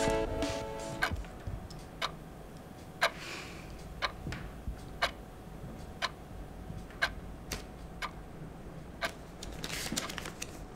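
Clock ticking steadily, about once a second. Paper rustles near the end as a folded note is opened.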